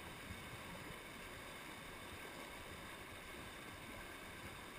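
Low, steady rushing of a mountain torrent's white-water rapids.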